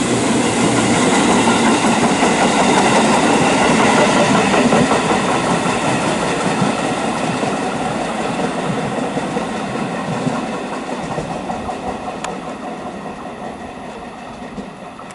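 JR 211-series electric multiple unit passing through a station at speed with wheel-on-rail running noise. It is loudest a few seconds in, then fades steadily as the train moves away.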